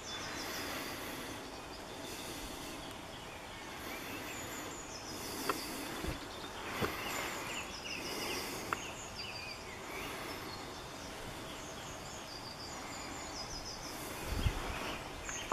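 Small birds singing in short, repeated high chirping phrases over a steady background hiss, with a few faint clicks.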